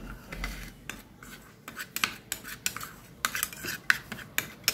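A steel spoon stirring and scraping a thick, damp paste around a small bowl, with irregular clinks and scrapes of metal on the bowl, several a second.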